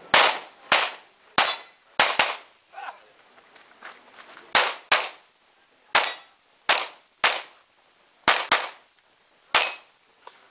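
Handgun shots fired in a practical shooting course of fire: about a dozen sharp cracks, mostly in quick pairs, with short pauses between the groups.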